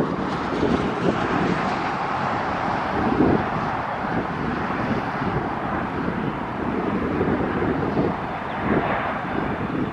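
Boeing 757's twin jet engines heard from the ground as it passes low on landing approach, a steady rushing noise with gusts of wind buffeting the microphone.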